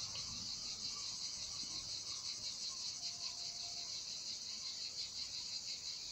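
Steady chorus of insects, a high, fast-pulsing buzz that runs on without a break.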